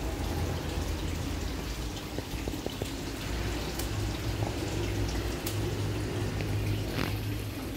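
Steady running, trickling water at a fish pond, over a low steady hum. A few short clicks, as scissors snip through water spinach stems.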